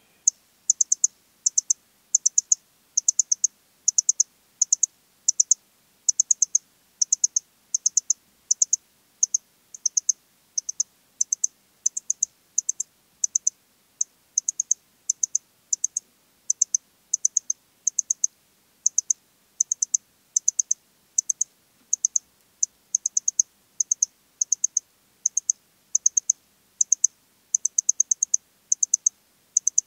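Eastern stripe-headed cricket (Modicogryllus frontalis) male singing: short high-pitched chirps of a few quick pulses each, repeated about twice a second in a steady series.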